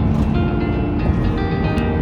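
Background music with steady sustained notes, over the low rumble of a vehicle driving.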